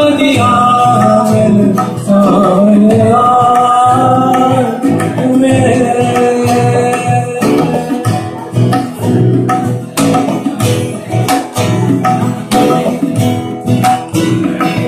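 Live acoustic band playing: a man singing a long, bending melody over strummed acoustic guitars. About halfway through the singing gives way to steady, rhythmic guitar strumming.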